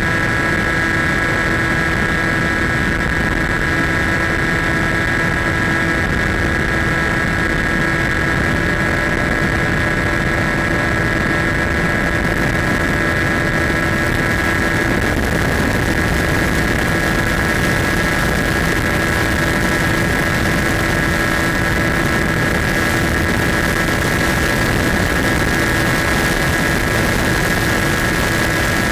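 Electric motor and propeller of a Skywalker RC plane running steadily in flight: a steady high whine over a constant rush of air.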